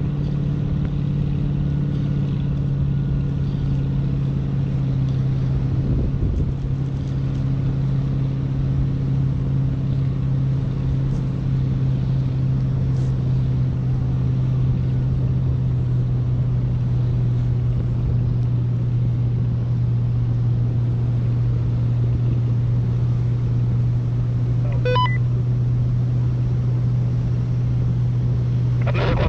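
Steady low droning hum over a rush of air, unchanging in pitch, heard from a parasail harness while being towed aloft. A brief faint chirp comes near the end.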